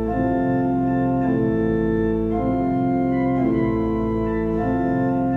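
Organ playing slow sustained chords that change about once a second over a steady held bass note.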